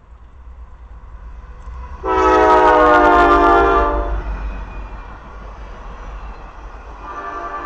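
A Norfolk Southern diesel locomotive's air horn sounds one blast of about two seconds, several notes at once, beginning about two seconds in. Around it, the train's passenger cars roll past with a steady low rumble.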